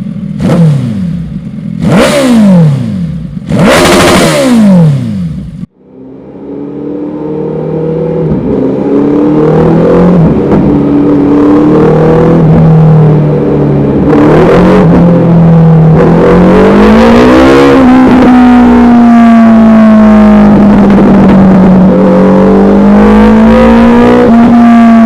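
Suzuki Hayabusa's inline-four sport-bike engine breathing through an aftermarket Dominator exhaust: several sharp throttle blips, each dropping back in pitch. It then cuts off abruptly and fades back in running steadily at held revs, its pitch drifting slowly up and down.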